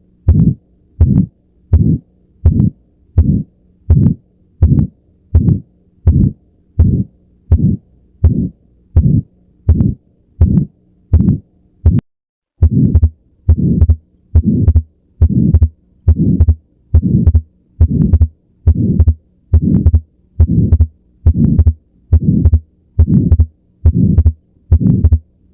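Heart sounds as heard through a stethoscope: a regular heartbeat, a little under one and a half beats a second, over a faint steady hum. The beats stop briefly about twelve seconds in, then start again at much the same rate.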